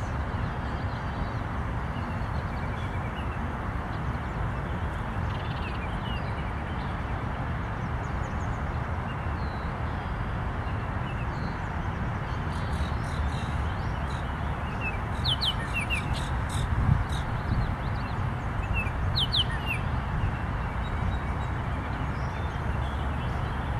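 Steady outdoor background noise with a small bird chirping a few quick high notes, first about two thirds of the way through and again a few seconds later.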